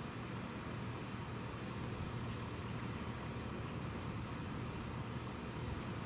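Steady low background rumble with a thin high whine, and a few faint, short, high chirps from small birds, mostly in the first few seconds.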